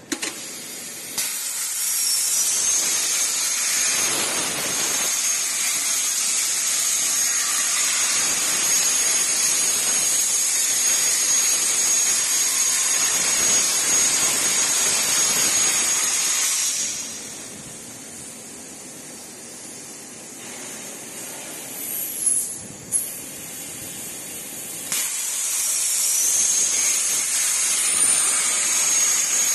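HPR400XD plasma torch cutting: a loud, steady hiss with a high whine over it. The arc stops about seventeen seconds in, two short bursts follow, and the cut starts again about eight seconds after it stopped.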